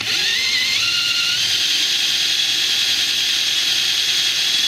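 Power drill boring into a plywood worktop with a 20 mm Forstner bit, cutting a shallow recess for a bolt head. The motor whine rises over the first second as it spins up, holds steady, then stops abruptly near the end.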